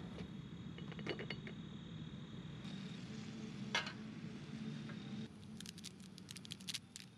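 Metal camp cookware clinking: light taps and one sharp clink about halfway through, then a quick run of small clinks near the end. Under it a steady low hum stops about five seconds in.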